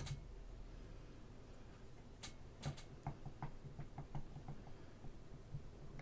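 Faint clicks and a quick run of small ticks from a sharp pointed tool picking at a resin model kit, pressing a starting dent so the drill bit can catch without walking on the smooth resin.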